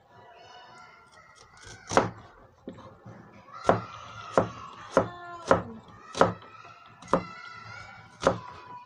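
Large kitchen knife slicing red onion and knocking down onto a plastic cutting board: about eight sharp chops, unevenly spaced, the first about two seconds in.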